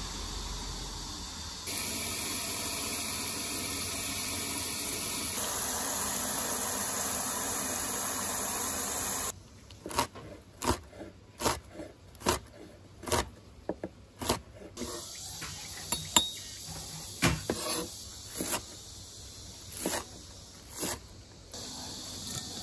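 Water running steadily for about nine seconds, rinsing salted cabbage and radish, then stopping abruptly. A chef's knife then chops chili peppers on a wooden cutting board in a run of sharp, irregular knocks, about one or two a second.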